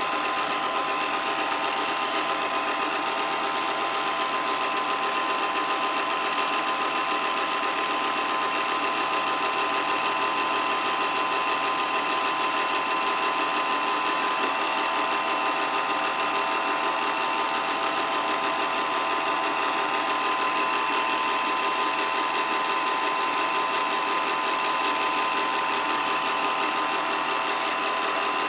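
8mm film projector running: a steady, fast mechanical clatter from the film-advance mechanism, with a constant whine from the motor.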